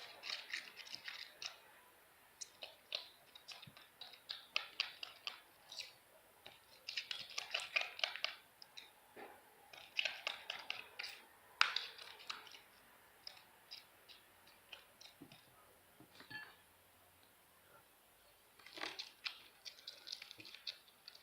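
Sticky slime being stirred in a small bowl as the contact lens solution activator starts to set it: bursts of faint wet clicking and crackling, with a quieter lull about two-thirds of the way through.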